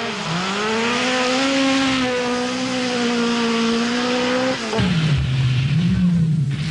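Group B rally car engine held at high revs: a steady high note that climbs slightly over the first second and holds for about four seconds. Just under five seconds in it cuts abruptly to a lower, rougher engine note that rises and falls.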